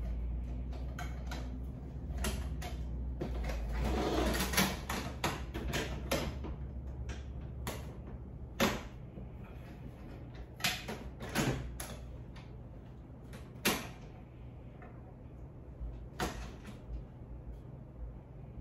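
Clicks, taps and knocks of a whiteboard easel's tripod legs and fittings being handled and adjusted during assembly: a quick run of them about four seconds in, then single sharper knocks every second or two, over a steady low hum.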